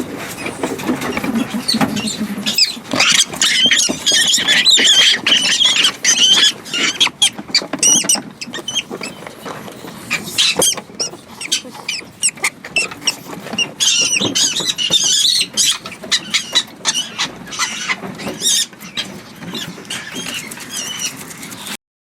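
Farmed mink squealing and chattering shrilly in bursts, with many sharp clicks and rattles throughout; the sound cuts off suddenly near the end.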